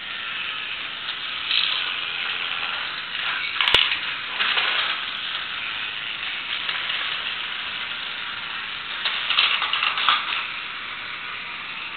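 Battery-operated toy truck set running: a steady whir of its small motor and plastic gears, with louder clattering of plastic parts near four seconds in and again around nine to ten seconds in.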